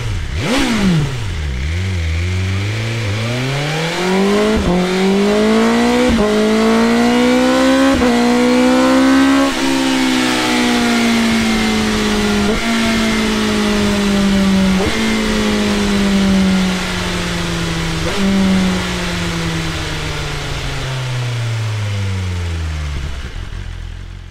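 BMW M 1000 R's 999 cc inline-four through its Akrapovic exhaust: a quick rev blip, then the engine note climbs steadily for about nine seconds and falls away over the rest, with a short crack every one to three seconds. The sound fades out at the end.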